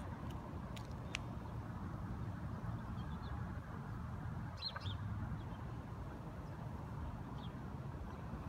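Steady low outdoor background noise, with a few faint, short bird chirps about four and a half to five seconds in.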